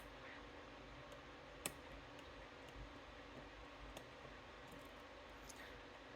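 A few faint, scattered clicks of a short hook pick and tension wrench working the pin stack of a lock, with near silence between them; the sharpest click comes about two seconds in.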